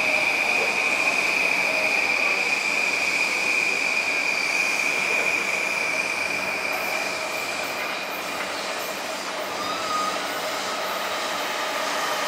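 Train wheels squealing against the rails over the running noise of a train. One steady high squeal fades away after the middle, and a second, lower squeal comes in near the end.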